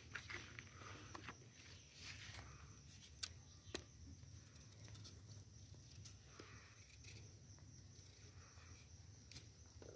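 Near silence with a few faint, sharp clicks of a knife cutting pumpkin, the two clearest about three seconds in.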